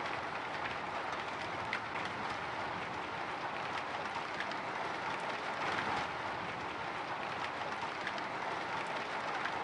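Light drizzle pattering on a window: a steady hiss of rain with many small scattered drop ticks on the glass.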